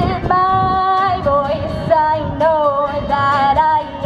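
A woman singing with vibrato over a strummed acoustic guitar, holding one note for about a second before moving through shorter sung phrases.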